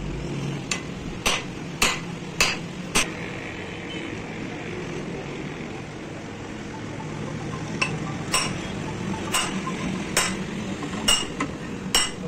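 Sharp metallic clinks from an adjustable hand reamer and its T-handle wrench being turned through a Hino truck steering knuckle's kingpin bore, reaming the new kingpin bushes to size. The clinks come roughly one or two a second in two runs, with a pause of several seconds between them. A steady low hum runs underneath.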